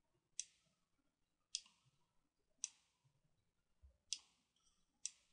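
Computer mouse clicking five times, about once a second, sharp and short against near silence.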